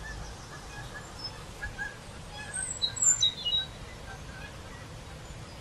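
Songbirds chirping, with a louder burst of quick, high notes in the middle.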